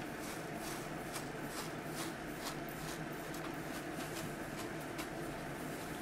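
A metal spoon digging into a bed of ground coffee in a paper drip filter: soft, gritty scraping strokes repeated a few times a second over a steady background hum.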